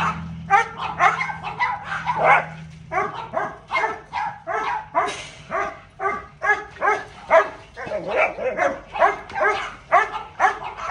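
A dog yipping and barking excitedly in a rapid string of short high calls, about two or three a second, without a break.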